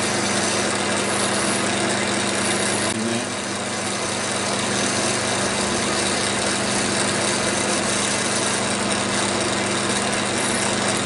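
AL-51G bench lathe running steadily, with a steady motor and gear whine, while a boring bar takes a cut inside the bore of a small collar to open it out to size. The level dips slightly about three seconds in.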